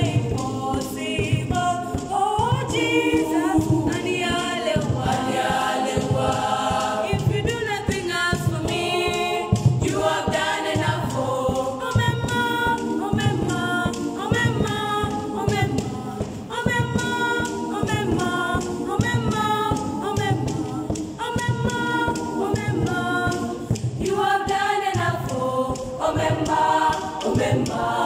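Girls' choir singing a cappella in several voice parts, with no instruments.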